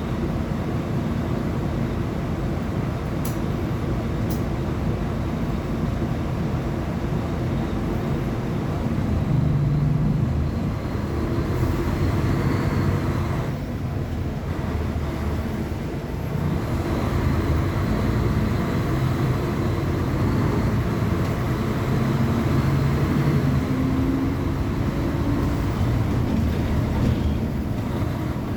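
Mercedes-Benz O500UA articulated bus's diesel engine running under way, its note rising and falling with the throttle.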